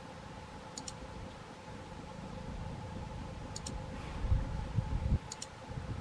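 Mouse-click sound effects, three quick double clicks, over a faint steady hum. From about four seconds in, gusts of wind rumble on the microphone, louder than the clicks.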